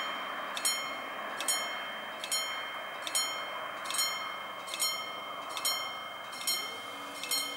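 Level crossing warning bell striking over and over, about one ring every 0.85 s, each strike ringing on, to warn that a train is coming. Near the end a low whine rises and then holds, as the barrier motors start lowering the booms.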